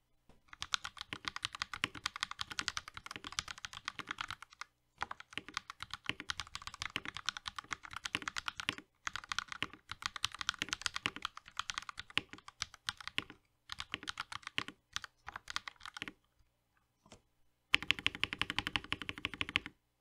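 Typing on an RK61 60% mechanical keyboard with Akko CS Matcha Green switches lubed with Krytox 205g0 and foam in the case: quick runs of keystrokes broken by two short pauses. After a few scattered presses, a louder, faster run of evenly spaced keystrokes comes near the end.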